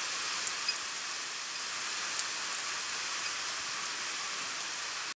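Steady rain falling: an even hiss with a few scattered sharp drop ticks, one a little louder about half a second in.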